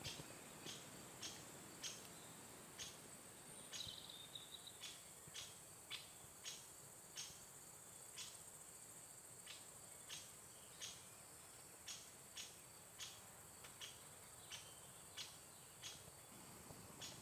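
Insects chirping faintly: short, regular chirps about one and a half to two a second over a steady high-pitched trill.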